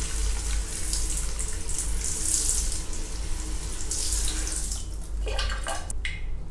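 Handheld shower sprayer hissing as it sprays water over a potted marigold and splashes onto a tiled floor, stopping about five seconds in, with a shorter sound just after. A low steady hum runs underneath.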